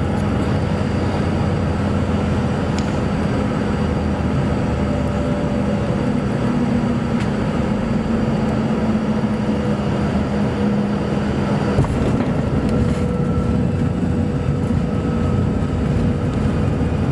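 Heavy diesel machinery running steadily, with a slight shift in engine note about twelve seconds in.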